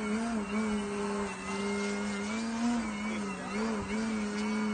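Engine of a Skywing Extra NG 60-inch RC aerobatic plane running in flight: a steady buzzing tone whose pitch rises and dips several times as the throttle is worked through manoeuvres.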